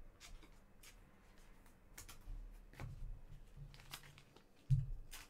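Trading cards being handled, with faint scattered clicks and rustles and a louder low knock near the end.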